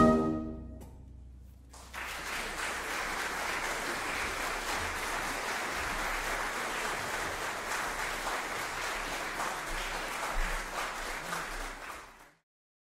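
The final chord of a brass band march dies away in the hall, then after a brief lull an audience applauds steadily for about ten seconds until the sound cuts off suddenly near the end.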